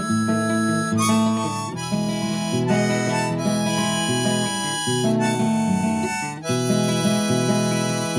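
Harmonica playing the closing instrumental melody of a country song after the last sung verse. The notes are held and change every second or so.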